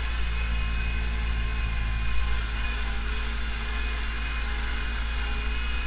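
Pronar 82SA tractor's diesel engine running steadily under load while pulling a seedbed cultivator across the field, heard from inside the cab.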